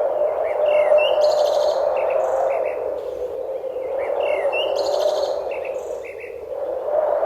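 Birds chirping and trilling in short calls, the same sequence of calls recurring about every four seconds, over a steady background noise that swells and fades.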